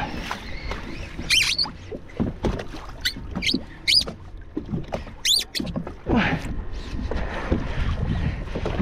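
Fishing boat rocking on rough open water, with steady wind and water noise and a low rumble. Several short high-pitched squeaks come at irregular intervals through the first half.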